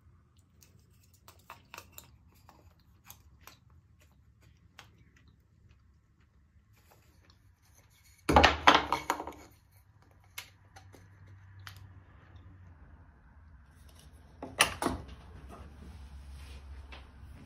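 Light clicks of metal digital calipers being handled against a wooden test block, then a loud clatter lasting about a second as the calipers and the block are put down on the plywood crosscut sled, with a second, shorter clatter a few seconds later. A low steady hum comes in around the middle.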